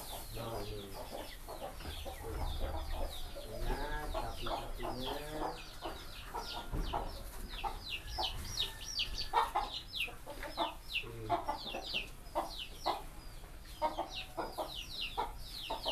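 Chickens clucking, with a continuous run of quick, high, falling chirps throughout.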